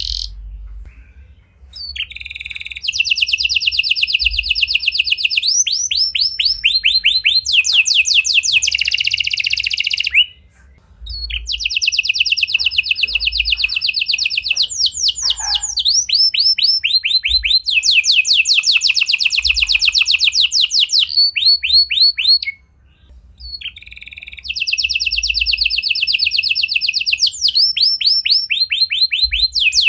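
Domestic canary in full song: long rolling trills of fast repeated high notes, in long phrases with short breaks about ten and twenty-three seconds in.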